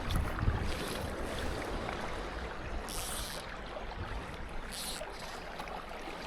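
Steady outdoor noise of wind and water with a low rumble, broken by two short high hissing swishes about three and five seconds in.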